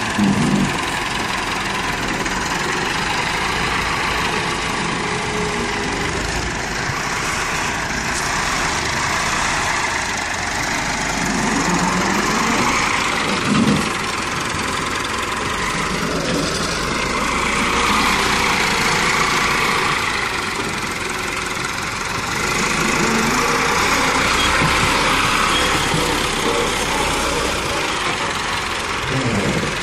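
Massey Ferguson 375 tractor's four-cylinder diesel engine running steadily as it pushes soil with a front blade. A brief louder surge comes about 14 seconds in, and the engine runs louder for several seconds in the second half.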